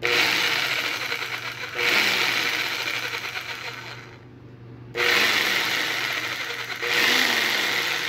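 Bauer orbital jigsaw running with no load, its blade pumping in the air, in two spells: it starts suddenly, gets louder about two seconds in, then fades and stops; it starts again about five seconds in and gets louder once more near the end.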